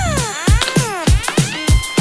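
Electronic dance music: a steady kick-drum beat at about two and a half beats a second, with synth notes sweeping down and up in pitch.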